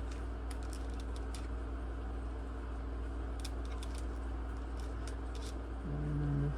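Steady low hum with a few faint, light clicks of small metal laptop screws being handled and sorted. A short low hum-like tone sounds near the end.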